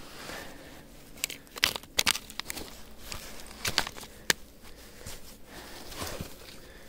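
Irregular crunches and sharp crackles of frozen snow and earth being broken up and handled, with a few louder clicks between about one and a half and four and a half seconds in.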